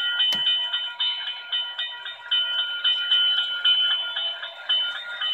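Model railroad grade-crossing bell sound module (ITT HQ300-1) ringing through a small speaker: a rapid electronic bell, evenly repeated about three times a second. The bell is sounding because the passing train has covered the crossing's photocell sensors and set the crossing signal going.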